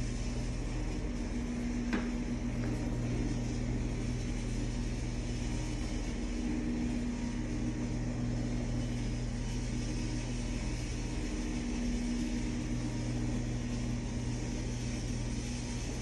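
Electric motors of an Auxx-Lift ceiling storage lift running steadily as the platform lowers all the way down, a steady hum.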